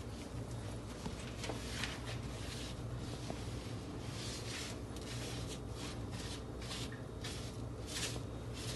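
Disposable cleaning wipe rubbed back and forth over a glass-ceramic cooktop, wiping off oil and food debris: a run of irregular swishing strokes, about two a second, over a steady low hum.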